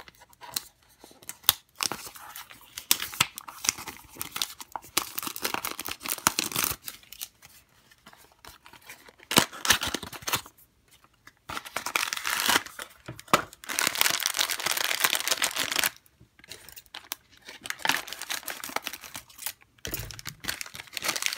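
Hands tearing open and crinkling a blind box's plastic inner bag, in irregular bursts of rustling with short pauses.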